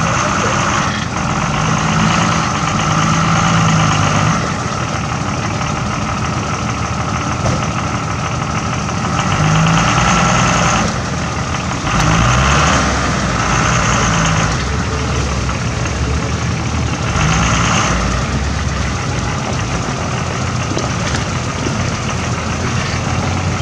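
Nissan Patrol K160's SD33 turbo-diesel straight-six pulling at low revs while crawling over loose rock, with the revs rising in several short surges.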